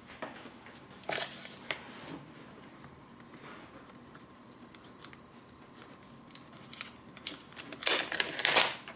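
Protective wrap on a laptop being handled and peeled off: light crinkling, rustling and small clicks, louder rustling near the end.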